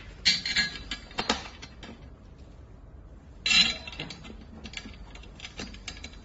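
Hand assembly of a metal-frame dining chair: two short scraping rustles, about a third of a second and three and a half seconds in, among scattered small clicks and knocks of metal parts and tools.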